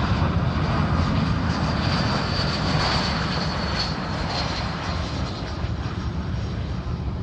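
Jet aircraft engines running as a plane passes, a loud rumble with a faint high whine that slowly fades over the last few seconds.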